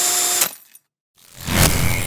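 A power tool's motor running steadily with a steady whine, cutting off about half a second in. After a short gap, a separate effect swells up into a deep hit that fades away.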